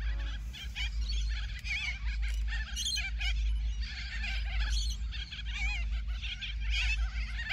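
A flock of cockatoos calling together, a continuous chatter of many overlapping harsh, wavering screeches, with a steady low rumble underneath.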